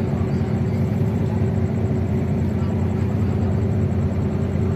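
Steady low hum and rumble of the passenger ship Dorolonda's engines running as she casts off from the quay.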